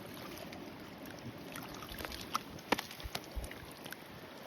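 Faint, steady river-water noise with a few small clicks and taps from handling, the sharpest about two and a half seconds in.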